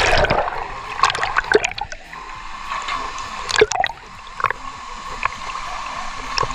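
Water sloshing, gurgling and splashing right against a waterproof action camera held at the surface by a swimmer. It is loudest in the first half second as the camera comes up out of the water, then turns to scattered small splashes and drips.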